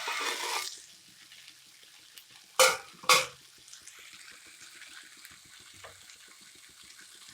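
Kitchen cooking sounds: a short rush of noise at the start, then two loud knocks about half a second apart, like a utensil striking a pan, followed by faint crackling.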